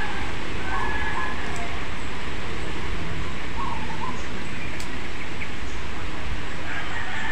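Steady rumbling background noise, with a bird calling a few times in short chirps and two sharp clicks of pruning scissors snipping twigs on a ficus bonsai.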